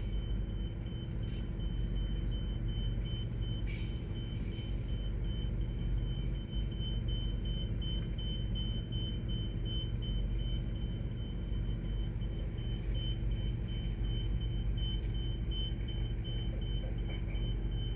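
Engine running steadily at idle: a low, even rumble, with a faint high-pitched tone pulsing evenly over it.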